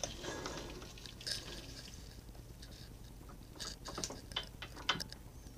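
Faint scattered clicks and light taps as hands work around a lathe's metal change-gear train while gear oil is put on, with more of them a little past halfway. A low steady hum sits underneath.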